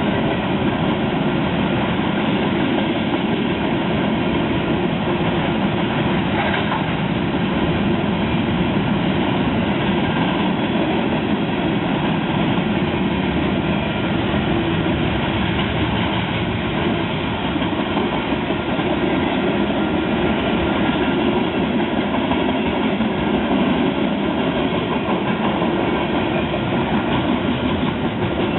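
Train cars rolling past on the track, a steady, loud rumble of wheels on the rails that holds even throughout.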